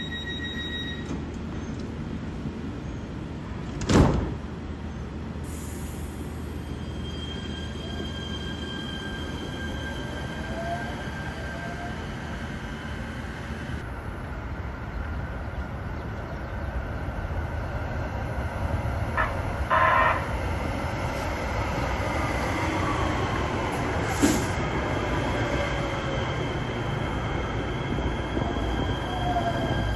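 Los Angeles Metro light rail trains at a platform. A standing train hums steadily, with one sharp knock about four seconds in. After a change of scene, another train approaches and pulls in: a thin steady wheel squeal, a motor whine that glides in pitch, and the sound growing louder toward the end.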